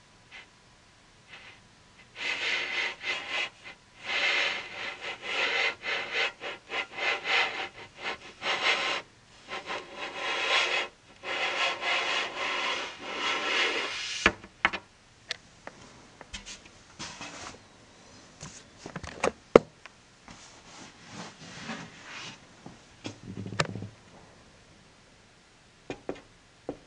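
Rough rubbing and scraping in quick irregular strokes, starting about two seconds in and running for some twelve seconds, then scattered light clicks and knocks.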